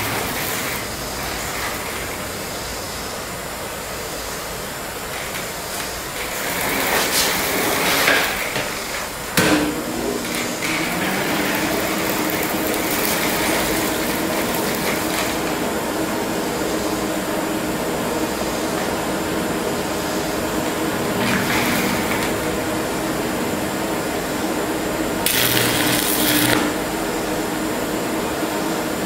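Propane torch burning with a steady hiss as it heats a cast iron exhaust manifold, the preheat before welding. About nine seconds in there is a sharp click, after which a steady low hum joins; brief louder noises come around seven to eight seconds in and again near the end.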